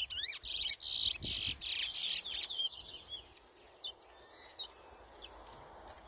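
Chestnut-bellied seed finch (towa towa) singing: a fast run of whistled, warbling phrases for the first couple of seconds, thinning to scattered single chirps after that.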